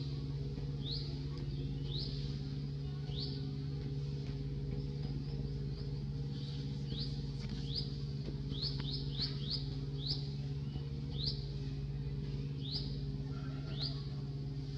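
Bird chirping: short rising calls, sometimes singly and sometimes in quick runs of three or four, over a steady low hum.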